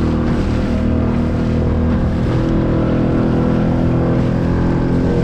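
Small outboard motor running steadily at speed on a solo skiff, with the rush of water against the hull mixed in.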